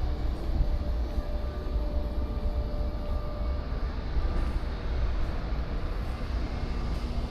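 Steady low rumble of a cruise ship's ambient noise, with faint humming tones from machinery that come and go.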